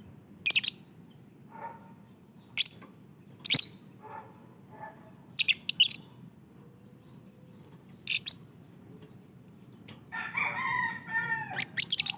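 Lovebirds chirping: short, sharp, shrill chirps every second or two, some in quick pairs, with softer lower calls between them and a busier run of longer chattering calls near the end.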